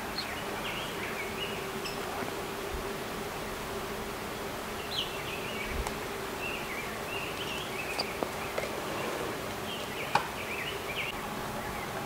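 Steady buzzing hum of flying insects at a bear bait site, with a few sharp clicks, the loudest about ten seconds in, and short high chirps in between.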